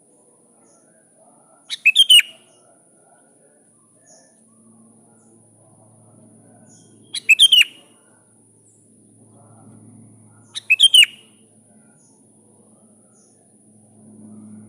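Sooty-headed bulbul calling: three short bursts of quick, chattering, down-sweeping notes, a few seconds apart.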